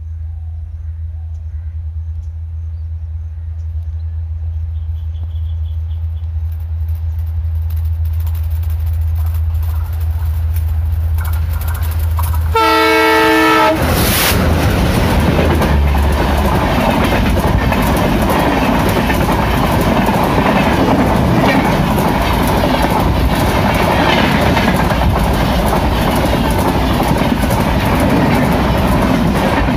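Twin ALCO WDM3A diesel locomotives approach with a low engine drone that grows steadily louder, then sound one horn blast of about a second. The locomotives then pass close by, followed by the loud, continuous rumble and clickety-clack of the express coaches' wheels over the rail joints.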